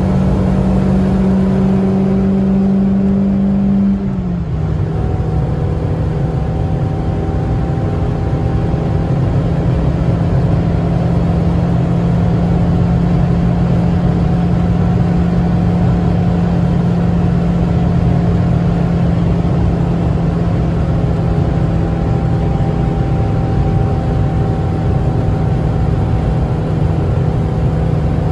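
Proton Savvy's 1.2-litre four-cylinder engine running hard at highway speed, heard from inside the cabin over tyre and road noise. About four seconds in the engine note drops in pitch with a brief dip in level, then holds steady.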